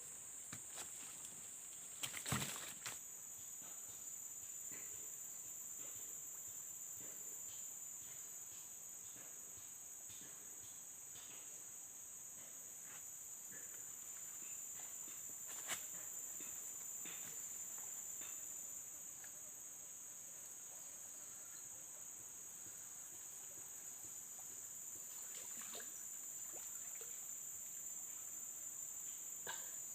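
Steady chorus of insects, a continuous shrill drone at two high pitches. A short sharp rattle of clicks comes about two seconds in, and a single click near the middle.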